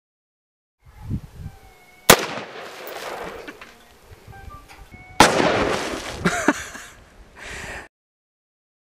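A single .223 rifle shot about two seconds in, with a long echoing tail. About five seconds in a second, longer burst of noise follows, with another sharp crack in it, then it dies away.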